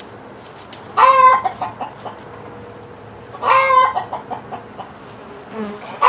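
A chicken calling twice and starting a third call at the end: each call is a loud, drawn-out squawk followed by a few short clucks. A faint steady hum of honeybees runs underneath.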